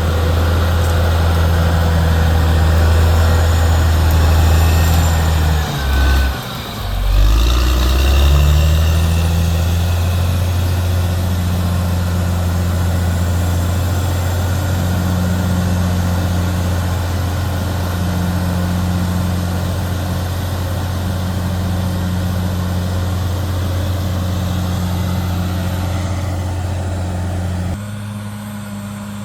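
Caterpillar D6R XL bulldozer's diesel engine running steadily at work. It dips sharply about six seconds in and picks back up about a second later. Near the end the engine note drops lower and quieter.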